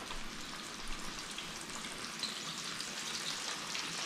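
Breaded fish frying in hot grease in a skillet: a steady sizzle with small crackles throughout.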